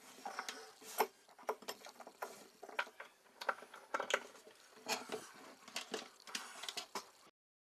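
Irregular light clicks and taps, roughly two a second, of small parts and hand tools being handled. The sound cuts off abruptly near the end.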